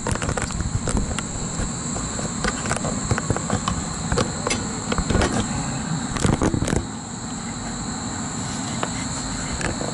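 Irregular clicks and knocks of hands handling wires and the contactor in a condensing unit's electrical panel, over a steady high-pitched insect drone. The knocking dies down about seven seconds in.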